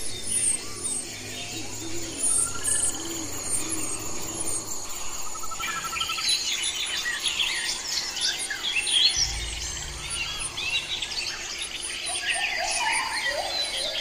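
Northern cardinal nestlings begging for food: a dense flurry of rapid high chirps that builds from about halfway through, over a steady high insect-like trilling in the background.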